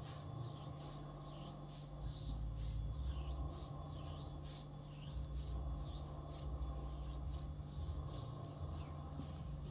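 Hands rubbing and kneading a person's body during a massage: a soft rubbing repeated about twice a second.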